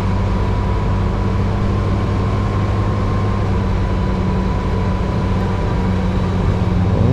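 Ultralight aircraft's engine and propeller droning steadily, heard from inside the cockpit during the final moments of a landing. A faint steady whine sits above the drone.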